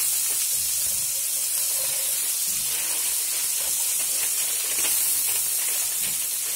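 Sliced onions sizzling steadily in hot olive oil in a metal tajine base while being stirred with a wooden spatula.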